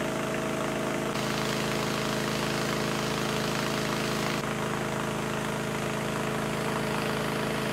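A steady mechanical drone with a constant pitch, like an engine or generator running, with a hiss over it.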